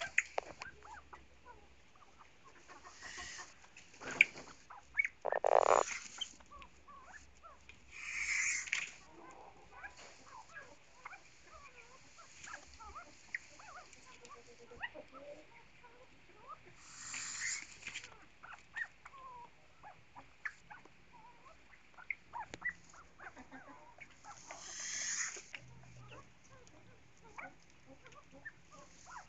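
Golden pheasants making scattered soft clucks and short chirps, with a handful of louder, brief noisy bursts spread through.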